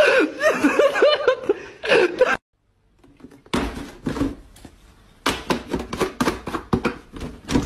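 A voice gives short cries that rise and fall, then breaks off. After a brief silence comes an irregular run of sharp taps and clicks, several a second.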